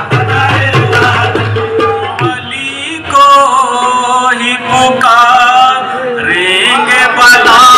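Live qawwali music: tabla strokes drive the first couple of seconds, then a singing voice comes in with long, bending held notes over the accompaniment.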